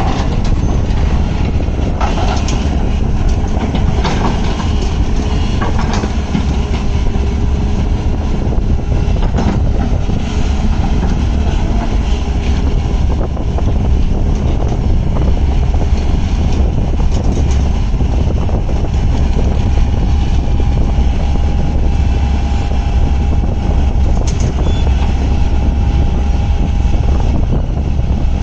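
Hyundai 210 crawler excavator's diesel engine running as it works on the mound, heard as a steady low rumble with faint scattered clanks.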